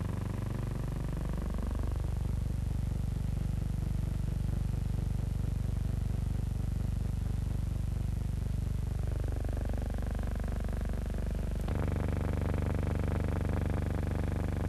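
Engine drone that rises in pitch over the first two seconds, holds steady, then falls away. About twelve seconds in it cuts abruptly to a different steady engine hum.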